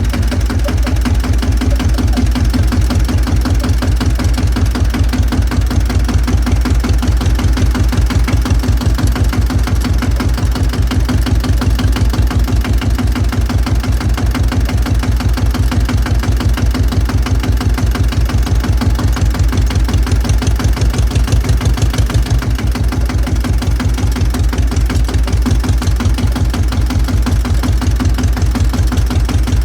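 Engine of a 1953 F12HL tractor running steadily while driving, with a fast, even chugging beat.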